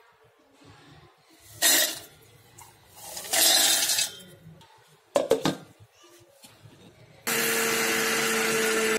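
Roasted peanuts rattling into a stainless-steel mixer-grinder jar in two pours, then a few clinks as the lid goes on. From about seven seconds in the grinder's motor runs steadily with a humming whine, grinding the peanuts.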